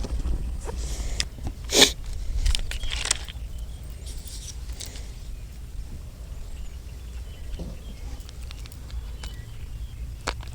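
Wind buffeting the microphone as a steady low rumble, with a few sharp clicks and rustles of handling, the loudest about two seconds in.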